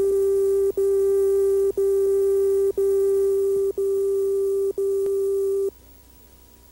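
Countdown leader tone on a news videotape: a loud, steady mid-pitched beep broken by a short gap once a second, one per number as the countdown runs down. It cuts off about six seconds in.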